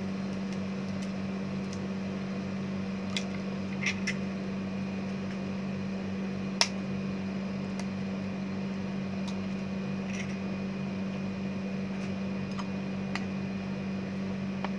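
Eggs cracked by hand: a few short, sharp taps and cracks of shell, the sharpest about halfway through, over a steady low hum.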